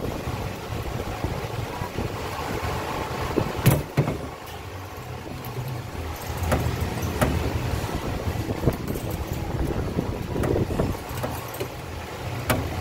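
Sharp clicks and light knocks from hands handling the AC cables and connectors at an inverter's wiring compartment, with two louder clicks, about four seconds in and near the end. Under them runs a steady low rumble.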